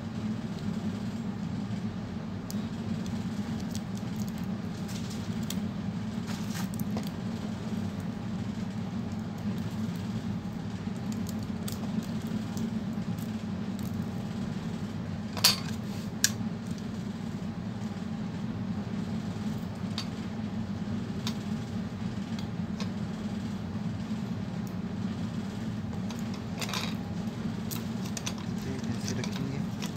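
Small scattered clicks and taps of fingers and tools working tape on a laptop motherboard, with two sharper clicks just after the middle, over a steady low hum.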